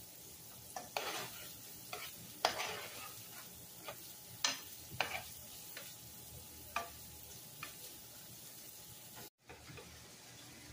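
Diced onions and green bell peppers sizzling in oil in a skillet, stirred with a spatula that scrapes and taps against the pan about nine times at irregular intervals. There is a brief dropout at a cut near the end, after which ground beef is being stirred in the same pan.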